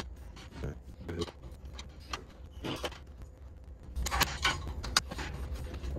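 Light knocks and clicks of aluminium extrusions being handled and set against a frame corner, then a quick run of sharper metallic clicks about four seconds in as a hex driver works the joining screw.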